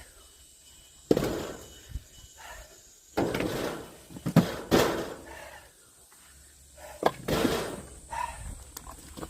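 Axe striking firewood being split: a series of sharp blows, about four, spaced roughly two seconds apart.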